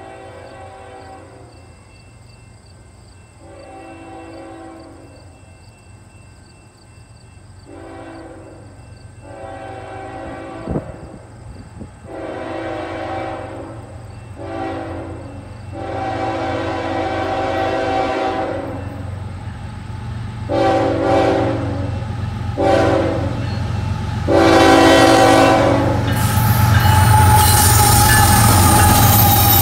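Canadian National freight locomotive horn sounding a series of long and short blasts, growing louder as the train approaches; the shorter ones are horn taps. About three seconds before the end the lead locomotive reaches the microphone and passes close by, with loud engine rumble and wheels on the rail.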